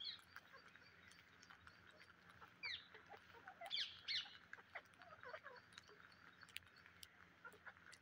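Rose-ringed parakeets giving short chirps and squawks, the loudest around three to four seconds in, over light clicking of beaks picking at rice grains on concrete.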